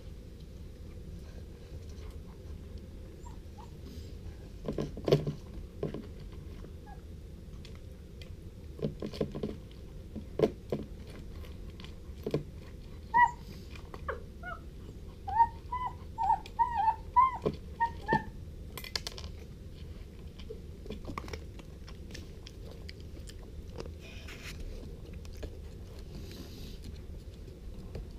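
A puppy eating dry food from a stainless steel bowl: scattered crunches and clinks of kibble against the metal, with a run of short high squeaks in the middle, over a steady low hum.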